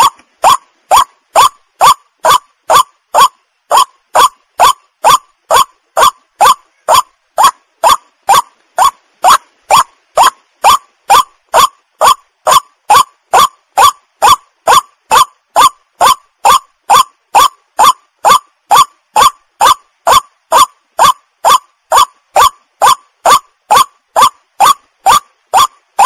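White-breasted waterhen calling: a loud, monotonous series of short rising notes, about two a second, repeated without a break.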